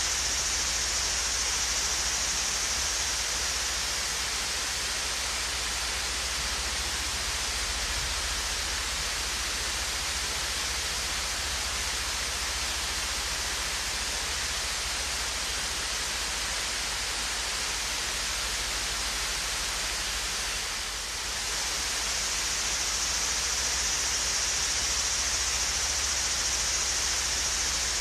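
Swayze Falls, a gentle waterfall, pouring steadily: a dense, even hiss of falling water, brightest in the high range. It softens briefly about three-quarters of the way through.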